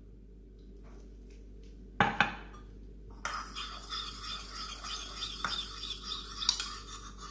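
A single sharp knock about two seconds in, then a spoon stirring and scraping round a small bowl for about four seconds, with a few light clinks, as powder is dissolved into rice water.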